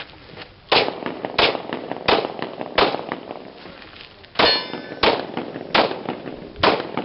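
Pistol shots at a steady pace, about one every 0.7 s: eight shots with a short pause in the middle. The shot about 4.5 s in is followed by the ring of a steel target being hit.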